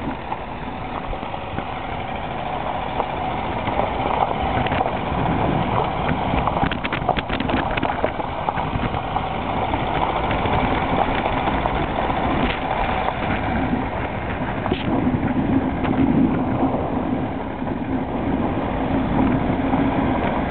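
Toyota RAV4 136 hp driving slowly along a gravel track, heard from inside the cabin: steady engine and tyre noise on loose stones. About seven seconds in there is a brief cluster of clicks and knocks, with a few single clicks later.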